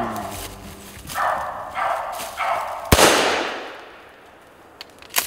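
A single gunshot about three seconds in, followed by an echo that fades over about a second. A few short, softer noises come before it.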